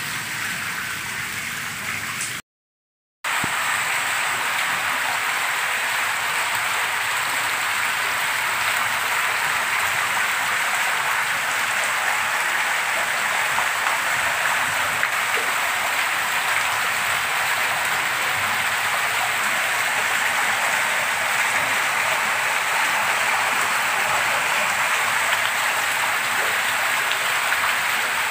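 Heavy rain, with rainwater streaming down concrete steps in a steady rush. The sound drops out completely for under a second about two and a half seconds in.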